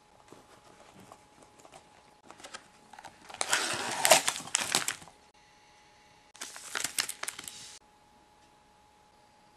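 Shiny wrapped packet of nail stickers crinkling as it is pulled from its cardboard box and handled. Light rustling comes first, then two loud bursts of crinkling, the first about three and a half seconds in and the second about a second after it, each stopping abruptly.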